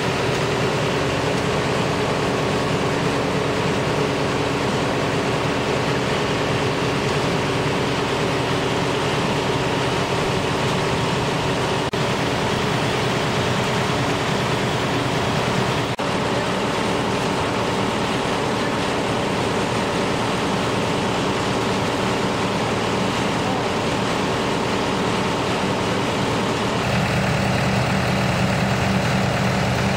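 An engine running steadily. About 27 seconds in the sound changes abruptly to a Minneapolis-Moline tractor engine idling, with a steady low tone.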